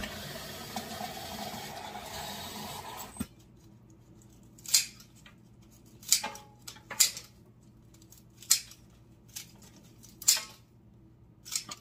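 Tap water running from a kitchen faucet into a glass vase, cutting off about three seconds in. Then about six separate sharp snips as scissors cut the ends off a bunch of flower and fern stems to freshen them.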